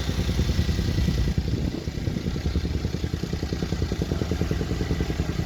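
Bulldozer's diesel engine running with a fast, even beat, easing off slightly about a second and a half in and then picking up again.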